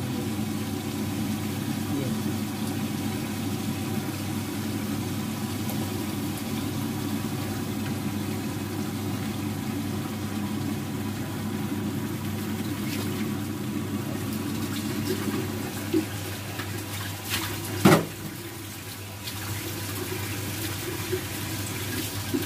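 Steady low rushing noise of a pot of meat and carrots cooking over a gas burner. There is a small knock about sixteen seconds in and a sharp clatter about two seconds later.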